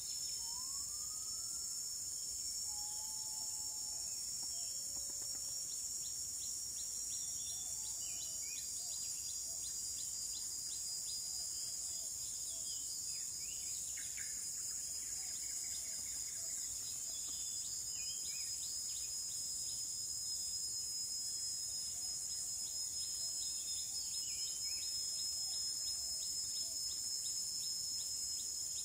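Steady high-pitched insect chorus, with scattered bird chirps and a few sliding whistled bird calls in the first few seconds.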